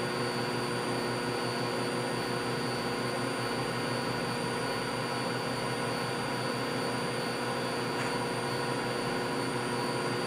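Steady electrical hum of a powered-up 1985 Bridgeport R2E3 (Boss 8) CNC milling machine standing idle, with one faint click about eight seconds in.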